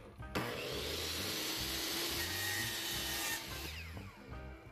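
DeWalt compound miter saw cutting a length of quarter round trim at a 44-degree miter. The saw starts about a third of a second in and cuts steadily for about three seconds. Near the end the blade winds down with a falling whine.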